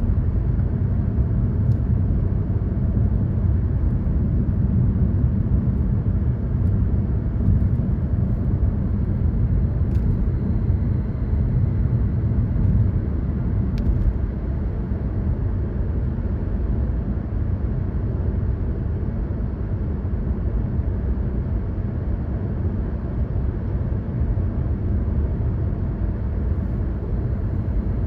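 Steady low rumble of a car being driven at cruising speed: road and engine noise, easing off slightly about halfway through.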